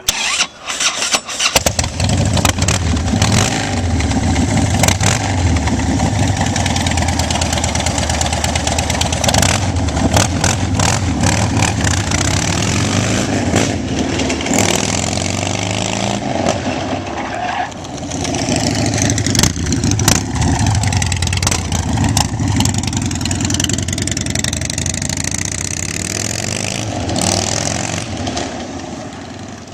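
Custom bagger motorcycle's V-twin engine cranked and started about a second and a half in, then running loudly and revved up and down several times.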